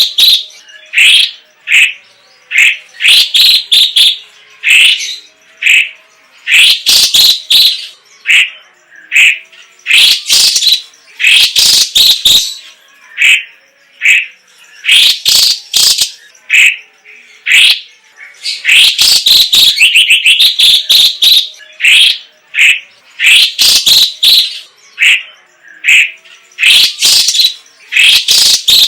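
Cucak ijo cina (cucak cungkok), a captive leafbird, singing loudly in rapid phrases of chirps and whistles. The phrases come in bursts of a second or two, with short pauses between them.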